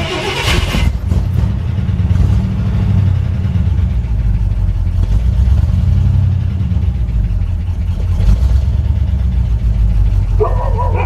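1968 Ford F-100's 360 V8 catching right at the start and then running at a steady idle on fresh oil just after an oil change. A dog starts barking near the end.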